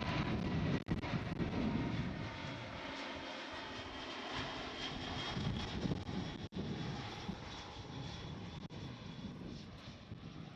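Jet airliner's engines, a broad rumble with steady whining tones, fading gradually as the plane moves away.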